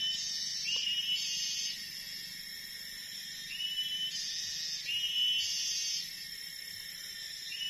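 Wild forest animal calls: a short rising note followed by a buzzy call about half a second long, given in pairs roughly every four seconds, over a steady high drone of insects.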